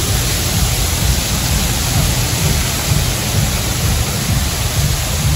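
Artificial waterfall at a water park pouring down at force: a loud, steady rush of falling, splashing water.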